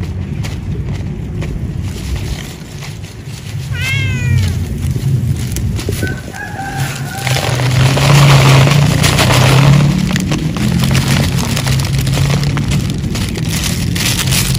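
A cat meows once with a falling pitch a few seconds in, and a short call follows. Dry cat food is then poured from a bag onto paper in a rattling rush lasting two or three seconds. A steady low rumble runs underneath.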